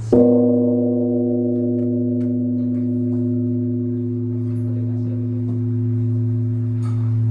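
Japanese temple bell (bonshō) struck once with its wooden beam: a sudden hit, then a long, deep, ringing hum. The higher tones die away over about four seconds while the low hum keeps sounding.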